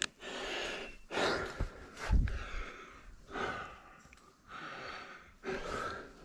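A tree climber breathing hard with effort while ascending a rope, about six heavy gasping breaths roughly a second apart. A low thump comes about two seconds in.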